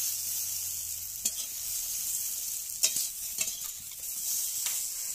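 Okra sizzling in hot oil in a metal wok, with the metal spatula scraping and clinking against the pan about four times as the fried pieces are lifted out.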